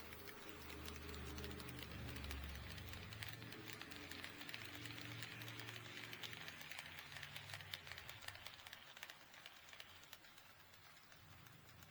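HO-scale model train running along the track past the microphone: a low motor hum with a rapid clicking and rattle of wheels on the rails. It grows louder over the first couple of seconds and fades away over the last few.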